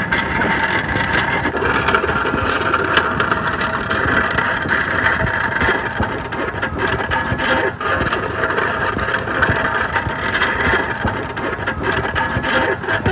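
A small child's tricycle with hard wheels rolling over gravel and dirt, giving a steady rattling crunch throughout.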